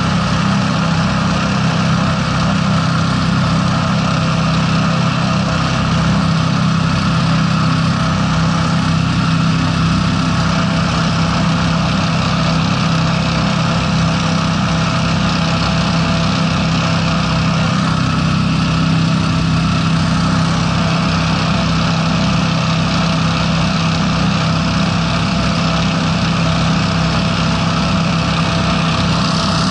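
Hovercraft's Honda 690 V-twin engines running steadily at cruising speed, a loud, even drone with a rush of air and spray, the craft travelling at about 45 km/h over open water.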